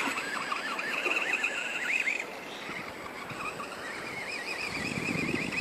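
Brushless electric motor of a 1/10 RC monster truck whining, its pitch rising and falling quickly again and again as the throttle is worked, with a rougher rumble near the end.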